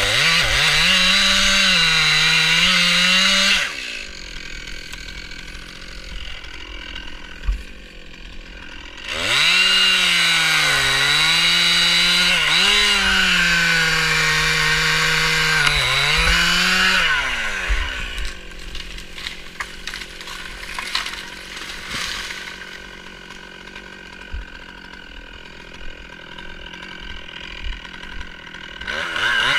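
Stihl MS 261 two-stroke chainsaw sawing wood: it runs at full throttle for a few seconds, drops to idle, then runs at full throttle again for about eight seconds with brief dips in pitch as the chain bites, before falling back to idle and revving once more at the very end.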